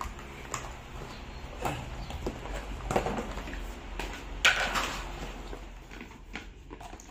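Foot-pump hose and PVC boat skin being handled while the hose is fitted to the boat's inflation valve: scattered plastic clicks and knocks and rustling, with a louder rustle about four and a half seconds in.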